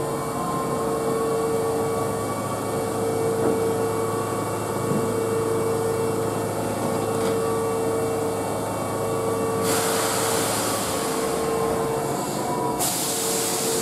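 Keihan 8000 series train standing at an underground platform with a steady electrical hum and tone. A hiss comes in about ten seconds in and grows louder near the end as the train gets ready to pull out.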